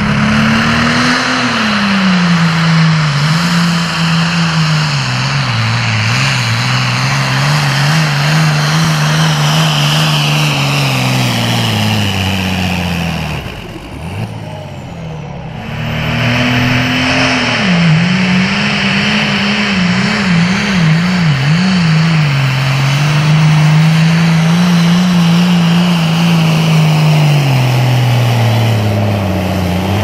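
Super farm pulling tractors' turbocharged diesel engines running flat out while pulling the sled, one tractor after another. Each engine's note sags under the load and recovers, wavering at times. The first pull ends about 14 s in, and the second starts a couple of seconds later.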